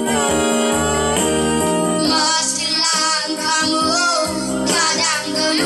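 Boys' voices singing a song into a microphone to electronic keyboard accompaniment, amplified through a loudspeaker.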